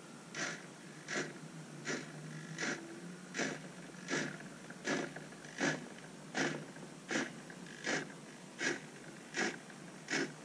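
The CrowBox's motor-driven sliding lid closing in small steps: short, evenly spaced whirs about three-quarters of a second apart, about fourteen in all.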